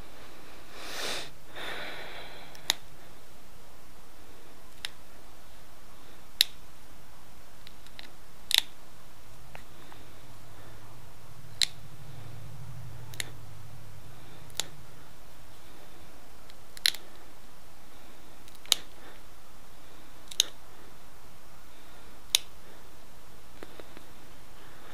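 Sharp clicks of pressure flakes popping off an Edwards chert arrowhead under an antler tine, about a dozen, one every two seconds or so. A short sniff about a second in.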